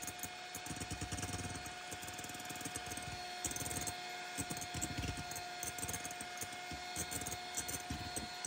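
Electric hand mixer running steadily with a motor whine, its twin beaters whipping egg whites and sugar into a stiff meringue in a glass bowl. A rapid patter of small clicks runs under the whine.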